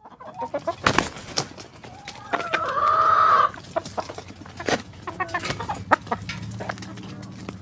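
Chickens clucking, with scattered sharp clicks and taps and one loud drawn-out squawk, about a second long, a third of the way in. A low steady hum comes in near the end.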